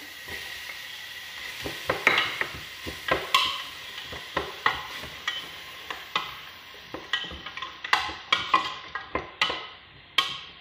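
Wooden spoon stirring chopped tomato into frying onions and spices in a stainless steel pot. The spoon knocks irregularly against the pot over a soft sizzle that fades in the second half.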